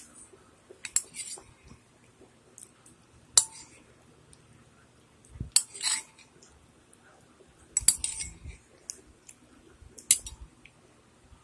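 Tableware clicking and clinking while eating, in five short bursts a couple of seconds apart, several with a dull knock beneath.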